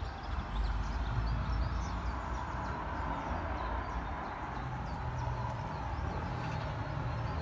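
Outdoor ambience: a steady low rumble of traffic with birds chirping faintly, mostly in the first half.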